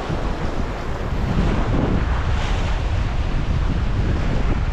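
Wind buffeting the microphone over surf washing around rocks, a steady, loud rushing noise.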